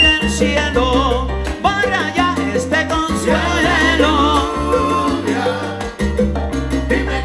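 Live salsa band playing: electric bass and congas and timbales under a lead melody line with vibrato.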